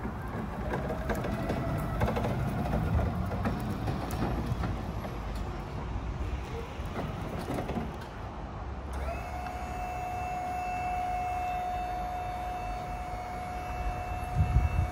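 Hyster HWEF07C electric pedestrian pallet stacker being driven across concrete, its drive rattling and clicking with a faint wavering motor whine. About nine seconds in, a steady high whine starts as the hydraulic pump motor lifts the forks, with a low thud near the end.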